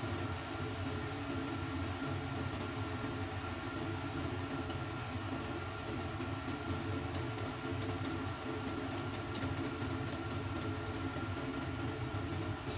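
A steady background hum runs throughout. Over it, a metal wire whisk clicks and taps lightly against a glass bowl while whisking thin pancake batter, with the clicks thickest in the middle and later part.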